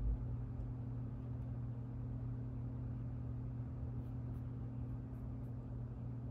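Steady low electrical hum of the room, with a soft low thump at the very start and a few faint ticks of a trading card being handled and turned over.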